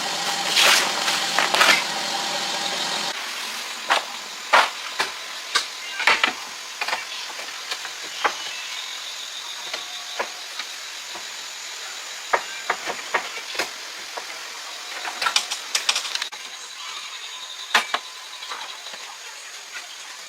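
An engine running steadily for about three seconds, then cutting off abruptly to a string of scattered sharp knocks and clanks.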